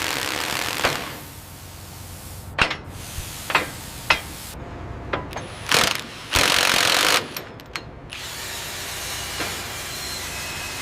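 Industrial tool and machinery noise: scattered sharp metallic clicks and knocks over a steady mechanical din, with one loud hiss lasting about a second just past the middle.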